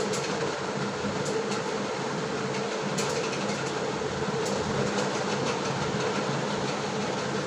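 Steady whir and hum of a cooling fan, with a few faint clicks.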